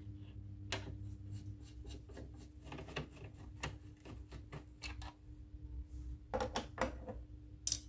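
Screwdriver working out the screws of a Honda Scoopy-i's plastic speedometer cover: a run of irregular clicks and scrapes of metal on the screw and plastic, thickest a little after six seconds in and with a sharper one near the end.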